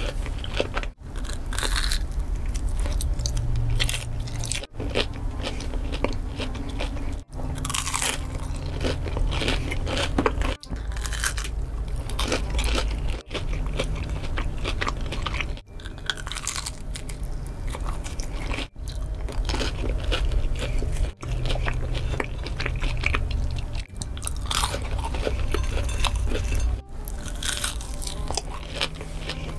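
Close-miked mukbang eating: big bites into crunchy food and loud chewing, in short spliced clips that cut off abruptly every two to three seconds.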